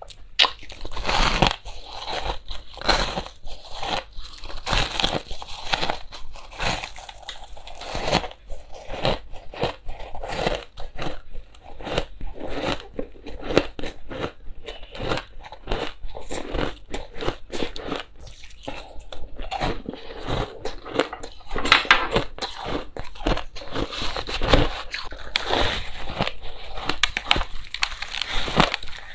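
Close-miked crunching and chewing of dyed crushed ice: repeated bites into packed clumps of coarse ice, breaking into crisp, crackling crunches.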